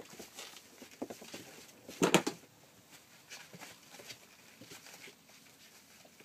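Month-old rough collie puppies scampering and scuffling on paper pet sheets: light pattering and rustling of small paws, with a brief louder clatter about two seconds in.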